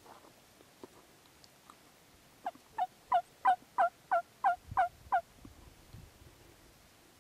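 A series of nine loud turkey yelps, about three a second, starting a couple of seconds in.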